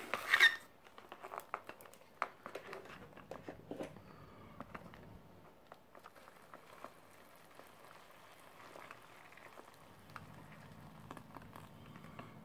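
Foil ration pouch crinkling loudly as it is handled at the start, with scattered crinkles over the next few seconds. Then hot water from an electric kettle is poured into the pouch of freeze-dried chicken curry, a faint steady trickle.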